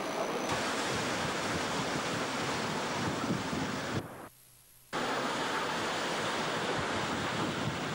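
Steady wind blowing across the microphone on an open ship deck, a constant rushing noise. About four seconds in it drops out for under a second at a cut in the recording, then resumes.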